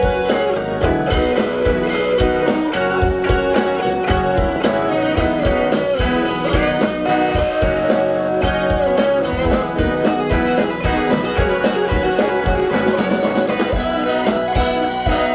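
Live blues-rock band playing an instrumental passage: a guitar-led melody with bending notes over a steady drum beat.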